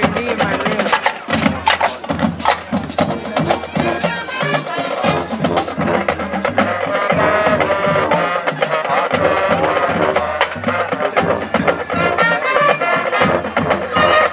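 Marching band playing: wind instruments over drumline and front-ensemble percussion, with a steady beat and moving low bass notes.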